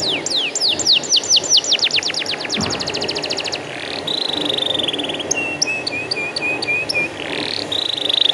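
Domestic canary singing a continuous song of quick-changing phrases: rapid repeated downward-sweeping notes, a very fast trill, a long warbled note held about three seconds, then a string of short repeated notes.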